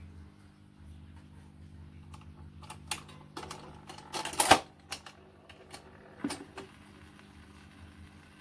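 1962 Dansette Conquest record player humming steadily, with a run of clicks and clunks from about three to six and a half seconds in, the loudest near the middle, as the player is handled and set to play a record.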